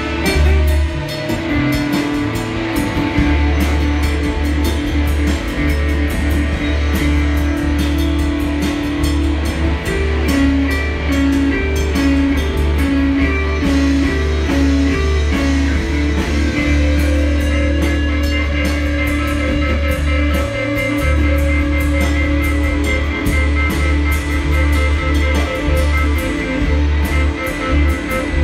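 Live rock band playing electric guitars and a drum kit, with a repeating guitar riff.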